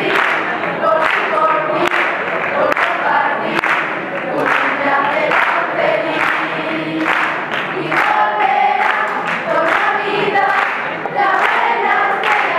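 Mixed choir of teenage students singing a Christmas carol (villancico) in Spanish, many voices together.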